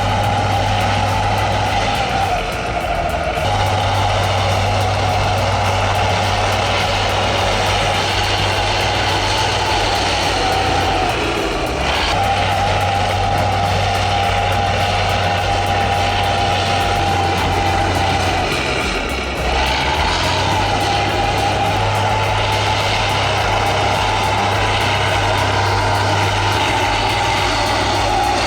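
Bulldozer's diesel engine running steadily under load, with a steady whine over its drone. It dips briefly three times, about three, eleven and nineteen seconds in.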